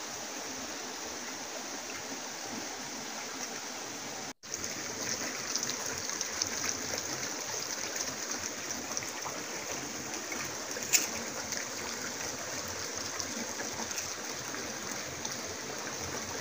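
Steady rushing and trickling of a small river flowing over rocks. The sound cuts out for an instant about four seconds in, and a single sharp click stands out about eleven seconds in.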